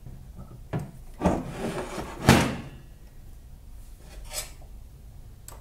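Metal parts of a hand-built tool-grinder slide being handled and adjusted while a shim is set in: a click, a scraping rub, then a sharp knock about two and a half seconds in, and a fainter scrape later.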